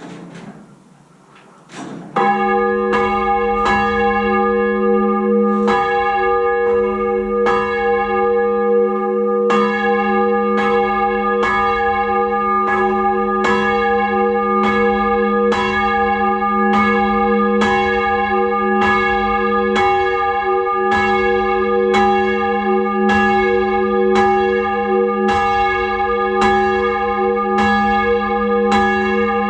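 Ring of six church bells, tenor 10–2–12 cwt in F, rung full-circle by a band of ringers. After a brief quiet start, the bells begin about two seconds in and strike one after another in an even, continuous rhythm, their tones ringing on and overlapping.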